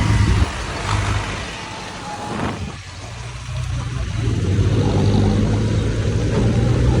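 JCB 3DX backhoe loader's diesel engine running under load. It drops off sharply about half a second in and rises again from about four seconds in, as the engine eases and then takes load again.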